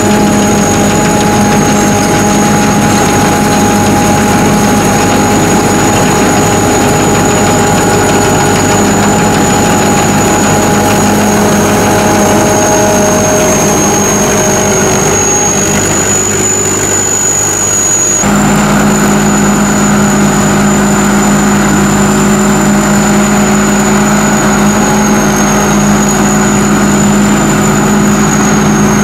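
SAKPATTANA SS-200 mini combine harvester running steadily, its engine hum joined by a constant high-pitched whine from the machinery. The sound shifts abruptly to a slightly different engine note about eighteen seconds in.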